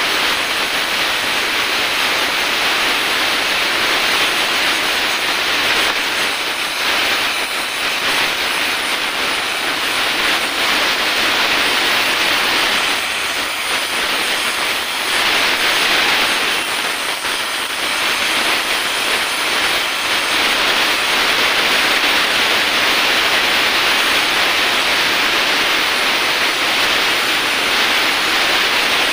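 Oxy-acetylene welding torch, its acetylene from a carbide generator, hissing steadily with a little rise and fall in loudness as the flame melts aluminium filler into a cracked crankcase oil drain bolt hole.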